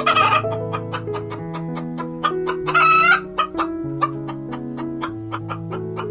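A chicken calling twice, each a loud call of about half a second, the first right at the start and the second about three seconds in, over background music with a steady tick.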